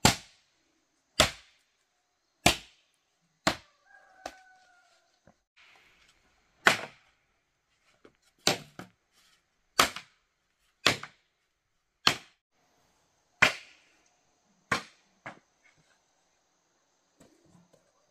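A hand tool striking hard again and again at a steady working pace, about one sharp blow a second with a couple of quick double hits. A brief animal call sounds about four seconds in.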